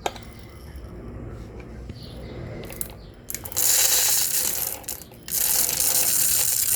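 Dry rice grains pouring and rattling, in two long rushes: one beginning about three and a half seconds in, the other from about five seconds in, with quieter rustling before them.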